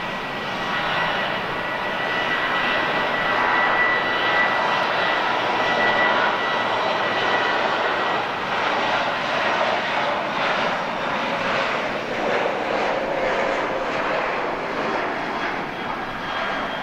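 Boeing 777-200 jet airliner's twin turbofan engines running as it flies past low, a steady jet rush with a thin high whine over it that is clearest in the first several seconds.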